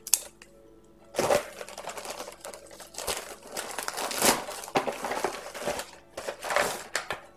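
Yellow padded paper mailer crinkling and tearing as it is slit with a folding knife and pulled open by hand. The rustling comes in irregular bursts, starting about a second in.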